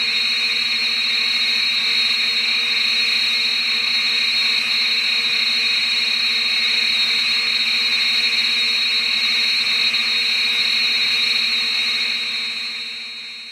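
Showa-era Mechagodzilla sound effect: a sustained synthetic hum with a fluttering high-pitched tone over a hiss. It starts suddenly, holds steady, and fades away near the end.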